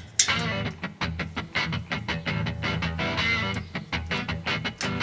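Background music with guitar: plucked or strummed notes over a steady low bass line.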